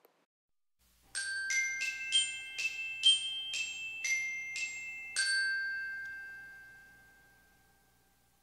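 A short jingle of about ten struck, bell-like high notes, about two a second, like a glockenspiel. The last note rings on and fades away.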